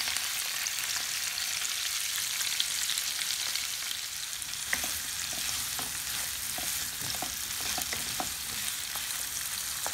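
Chopped red bell pepper and onion sizzling in hot oil in a frying pan, a steady hiss. From about halfway through, a few light clicks and knocks of stirring.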